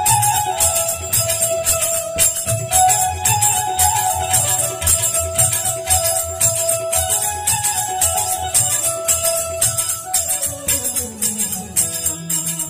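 Instrumental passage of a Gujarati devotional bhajan: bulbul tarang (Indian banjo) and harmonium carry the melody over a steady drum beat and jingling hand cymbals. About ten seconds in, a note slides down in pitch.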